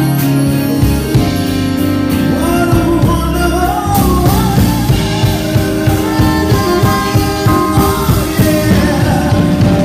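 Live band playing a song with a singer and a drum kit; the drumming gets busier about four seconds in.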